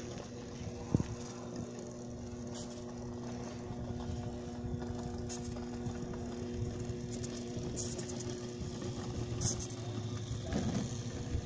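Line-marking robot's motor running with a steady, even hum as it drives over asphalt, with one sharp click about a second in.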